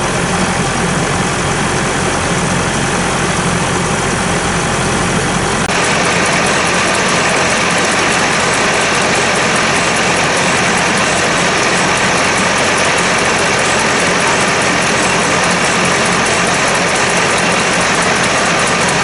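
Vintage stationary engines running steadily, a dense mechanical din with a low hum. About six seconds in, the low hum falls away and the higher part of the sound gets brighter.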